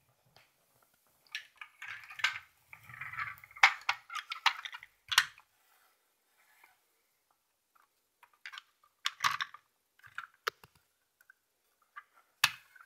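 Handling sounds: a stiff book page being turned, and a plastic toy truck being moved and set down. Paper rustles mixed with sharp clicks over the first few seconds, then a few scattered light plastic clicks and taps.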